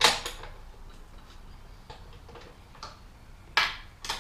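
Irregular clinks and knocks of metal hand tools being handled on the steel mower deck, with a louder clank at the start and another about three and a half seconds in.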